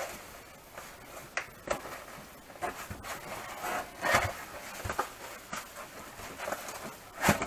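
A foam packing insert being lifted out of a cardboard box and handled: scattered rubs, rustles and scrapes of packaging, the loudest one near the end.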